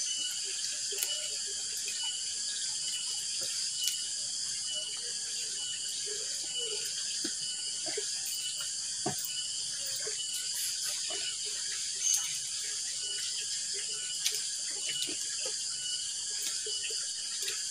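Steady insect chorus of crickets, a high-pitched buzz with a faint chirp repeating a few times a second. Under it are faint scattered clicks and soft handling noises from hands eating off banana leaves.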